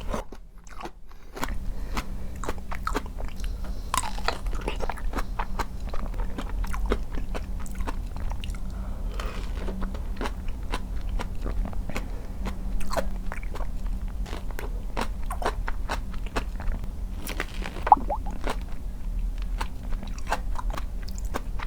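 Flat (donut) peaches being bitten and chewed: repeated crunchy bites and wet chewing, with a brief pause just after the start.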